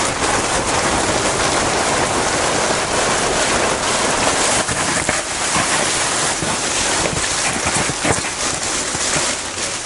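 Polyethylene tarp and clear plastic sheeting rustling and crinkling continuously as they are rolled up and handled, with a few sharper crackles.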